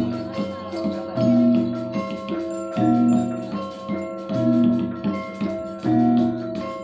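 Gamelan music: metallophones playing a repeating melodic pattern, with a loud low stroke about every second and a half.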